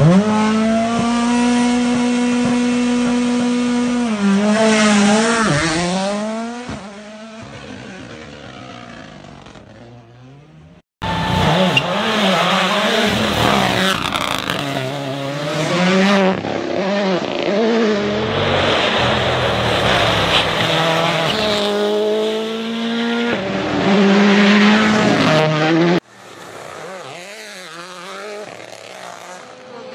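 A Rally1 car's turbocharged engine is held at a steady high rev, then pulls away through quick gear changes and fades into the distance. After a brief silence, another Rally1 car races past hard, its revs rising and falling with each gear change. Near the end it drops suddenly to a quieter, more distant engine.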